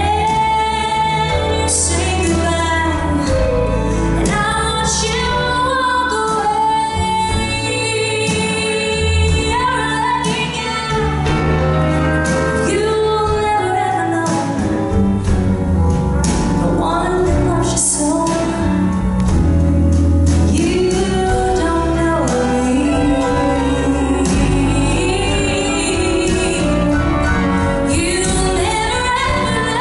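A woman singing live into a microphone, backed by a country band with acoustic guitars, drums, piano and pedal steel guitar.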